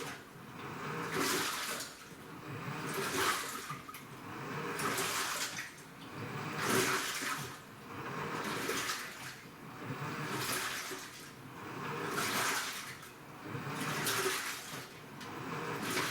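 AQUA washing machine with a direct-drive inverter motor in its wash cycle, water and laundry sloshing in even swells about every two seconds as the drum's agitation reverses back and forth.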